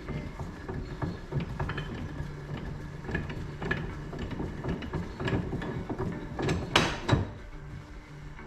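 Hand tools and metal parts clinking, scraping and knocking during work on a dirt bike's swingarm linkage bearings, with a louder clank about seven seconds in.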